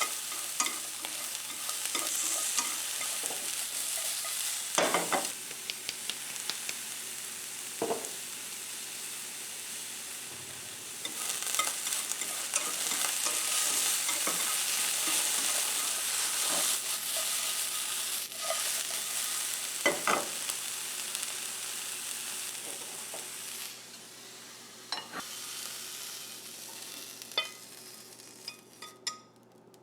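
Food sizzling in a hot frying pan while it is stirred and tossed, with a steady hiss and occasional knocks and scrapes of a utensil against the pan. The sizzle quietens about three-quarters of the way through.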